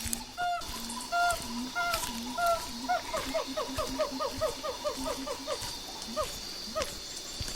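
Jungle ambience: an animal's repeated honking calls, a few slow ones and then a quick run of about six a second, over a steady high insect drone.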